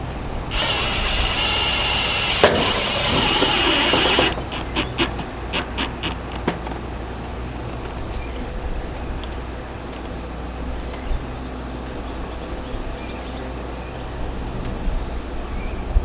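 A cordless power driver runs for about four seconds, driving a screw into a metal roofing panel, followed by a string of quick clicks. A steady low hum sits underneath.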